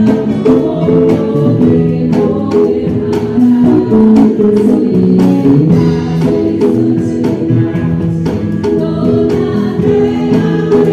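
Stratocaster-style electric guitar with single-coil pickups, played as a lead over a gospel worship song with singing and a steady beat.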